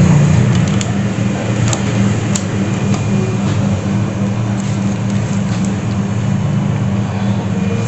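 Deep freezer compressor running with a steady low hum, with a few light ticks in the first couple of seconds. The freezer is running but not cooling.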